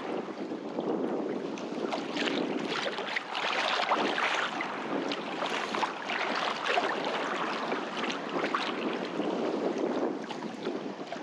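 Water sloshing and splashing at the shoreline, with wind buffeting the microphone.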